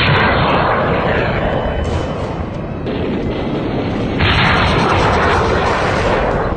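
Truck-mounted multiple rocket launcher firing a salvo: a loud rushing noise of rockets leaving the tubes, starting abruptly and surging again about three and four seconds in.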